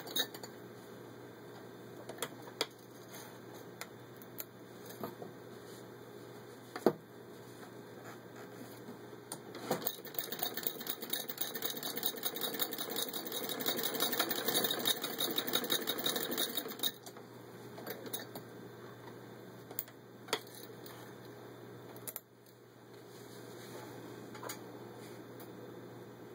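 Antique Clemens Müller hand-crank sewing machine stitching through six layers of denim: a rapid mechanical clatter for several seconds in the middle, going through with ease. Around it, scattered clicks and knocks as the machine and fabric are handled.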